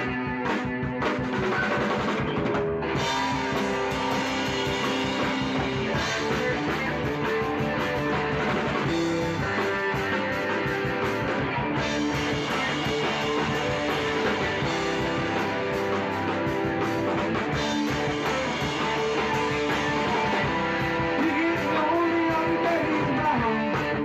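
Rock music: a full band track with a drum kit and electric guitar playing steadily.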